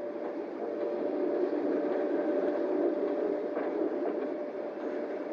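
Steam train sound effect laid over the film: a steady rush of locomotive and rolling noise with a faint steady tone running through it, a little louder toward the middle.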